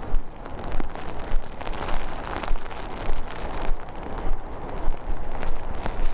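Footsteps crunching at an even walking pace, about three steps every two seconds, over a steady low rumble of wind buffeting the microphone.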